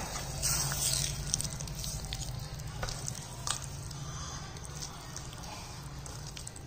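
Steel ladle mashing and stirring a soft, oily eggplant chokha in a stainless steel bowl: wet squelching with a few light clicks and scrapes of metal on metal. A steady low hum runs underneath.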